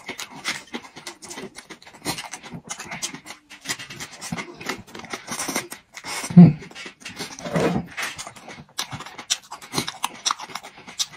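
Close-miked chewing of a lettuce-leaf wrap around a piece of hard ostrich kidney: crisp crackling crunches and wet mouth noises, with one loud low thump a little past halfway.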